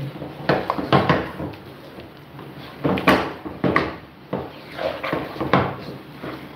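A spoon beating thick mashed sweet potato in a coated pot, with irregular knocks and scrapes of the utensil against the pot's sides and a soft squelch of the mash.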